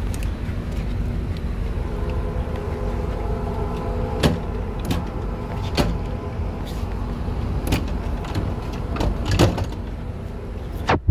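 A steady low rumble with a faint hum, with several knocks and clatters from a glass entrance door being handled. Near the end a sharp knock comes and the rumble cuts off suddenly, as of the door shutting.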